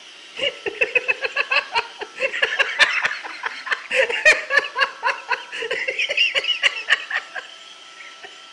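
High-pitched laughter, a long run of quick giggling bursts, over a faint steady whine.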